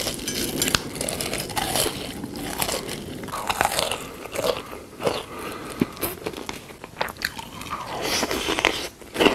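Close-miked eating: irregular crisp crunching bites and chewing.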